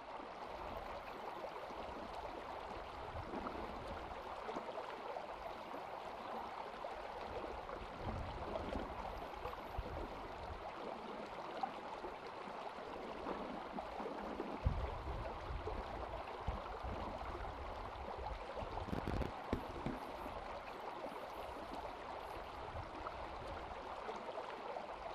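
Shallow river water flowing steadily over gravel, with a few short low thumps, the loudest about fifteen and nineteen seconds in.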